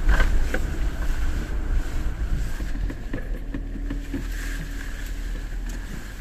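Cabin noise inside an Ineos Grenadier 4x4 driving over a rutted mud track: a steady low engine and tyre rumble, with a few sharp knocks from the body and suspension over bumps in the first second.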